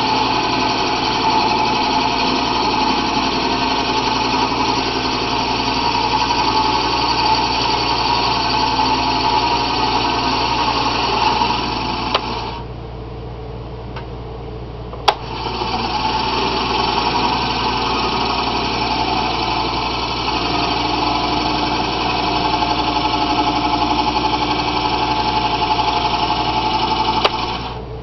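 Wood lathe running with a steady whine while a hole saw held in the tailstock cuts into the spinning wooden pipe blank to shape the outside of the bowl. It stops about twelve seconds in, a sharp click follows a few seconds later, and then it runs again until just before the end.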